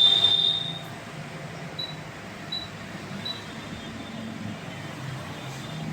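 SMD hot-air rework station blowing steadily over a phone's CPU chip to seat it. A loud high tone sounds for about the first second, then three short high beeps follow less than a second apart.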